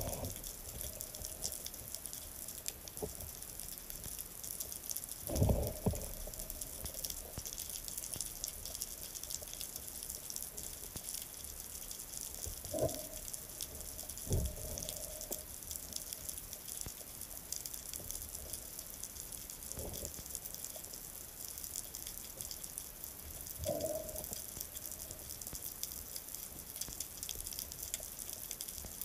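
Seawater sloshing and dripping around a camera held at the sea surface, with a handful of short, louder splashes, the loudest about five and a half seconds in.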